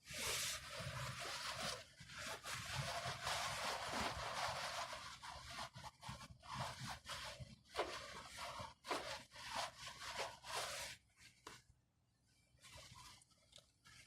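Irregular rubbing and scraping, dense from the start and dying down about eleven seconds in.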